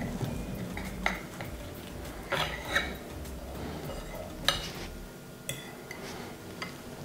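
Knife and fork scraping and clinking against a plate while cutting through a baked egg-and-lavash casserole and lifting out a slice. Scattered sharp clicks, the loudest about four and a half seconds in, and a clink with a short ring a second later.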